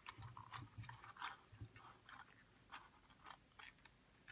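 Faint, irregular small clicks, scratches and paper rustles of fingers fitting the backing-paper tab of a 120 roll film into the slots of an empty take-up spool inside a camera, with a few soft knocks against the camera body.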